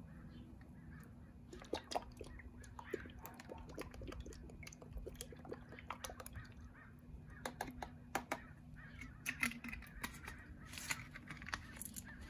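Scattered light clicks and taps of a homemade aloe vera, egg and soy meal mixture being stirred in a container, growing busier in the second half. Faint bird calls sound in the background.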